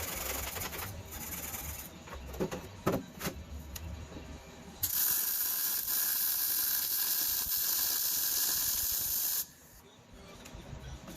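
A loud, steady hiss starting about five seconds in, lasting about four and a half seconds and cutting off suddenly, after a few short knocks.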